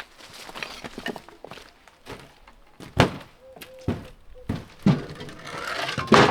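Irregular heavy thuds and knocks from demolition and clearing work, the loudest about three seconds in.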